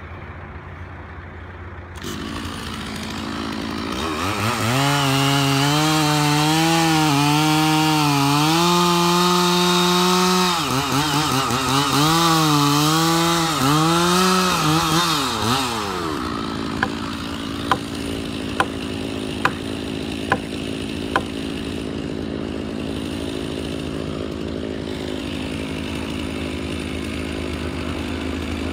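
Two-stroke chainsaw cutting into a large tree trunk. Its engine comes up to speed about four seconds in and rises and falls in pitch under load in the cut for about twelve seconds, then drops to a lower, steadier running. A handful of sharp knocks follow a second or two later.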